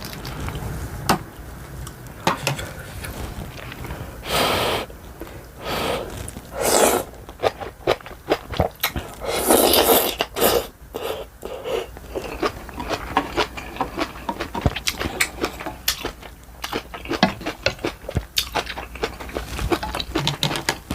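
Close-miked eating sounds from ramen and kimchi: steady chewing with many small wet mouth clicks, broken by a few short, louder slurps, the loudest about ten seconds in.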